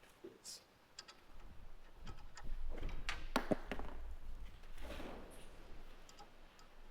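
Scattered knocks and clicks of hardware being handled while a skid steer's door is being fitted, the loudest cluster between about two and four seconds in, over a low rumble.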